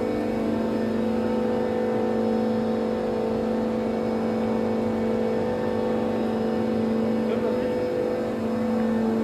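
Heavy construction machinery running with a steady, even hum that does not change in pitch.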